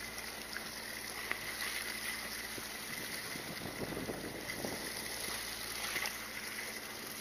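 Steady background noise aboard a fishing boat at sea: water and wind, with a faint low hum.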